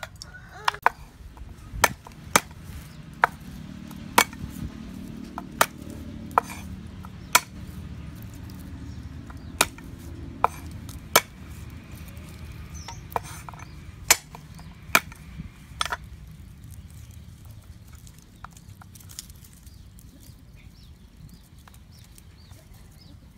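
Knife and cleaver blades chopping on a wooden cutting board, cutting red chilies and then garlic cloves: about a dozen sharp, irregular knocks, roughly half a second to a second and a half apart, that stop about 16 seconds in. After that only faint small taps and rustles remain, as garlic is peeled by hand.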